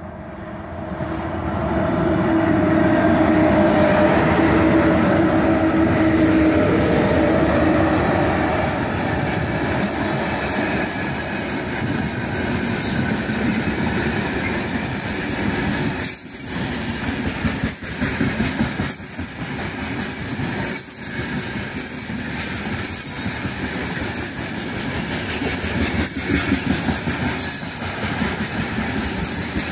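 Pair of 2ES5K Ermak electric locomotives passing close by with a loud, steady hum, followed by a long freight train of open gondola wagons rolling past. The wagons rumble steadily, with sharp clacks at irregular intervals as their wheels cross rail joints.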